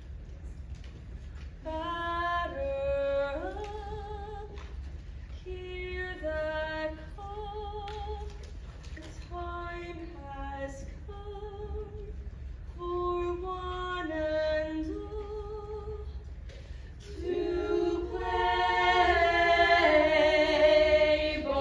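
Women's voices singing a show tune on stage: one voice sings phrases of held notes with vibrato, then several voices join together, louder, near the end. A steady low hum runs underneath.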